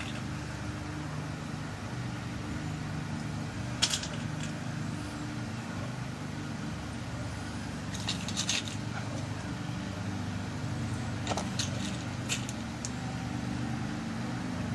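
Light metallic clicks and ticks of small tumbler pins being dropped and fitted into a lock cylinder during rekeying, a few scattered clicks over a steady low hum.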